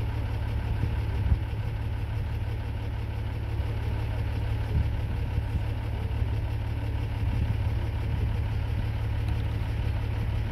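Vehicle engine idling steadily with a low hum, and a short knock about a second in.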